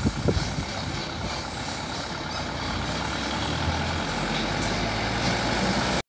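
Trucks and a bus driving across a railway level crossing, with engines running steadily and getting a little louder as a dump truck comes near. There is one heavy thump just after the start. The sound cuts off suddenly near the end.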